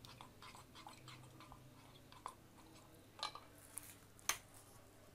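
A spoon stirring liquid in a small saucepan, with a few light clinks and scrapes against the pan's side in the second half, the sharpest a little after four seconds.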